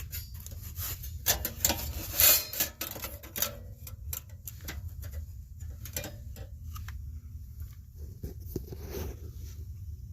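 Irregular sharp clicks and knocks, dense in the first few seconds and sparser after, over a steady low hum.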